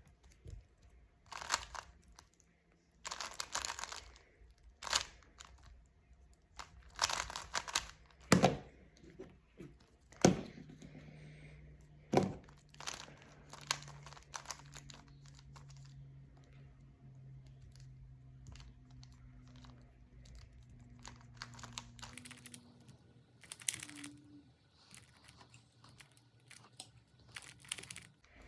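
Plastic Rubik's cube being turned by hand: irregular bursts of clicking and rattling as layers are twisted, with pauses between turn sequences.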